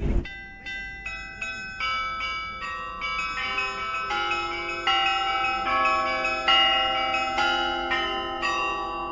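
Russian Orthodox church bells rung by hand in a zvon: small high bells strike a quick repeating pattern about two or three times a second, and larger, lower-pitched bells join in about three seconds in and again near six seconds, the tones ringing on over one another. A brief low thump sounds at the very start.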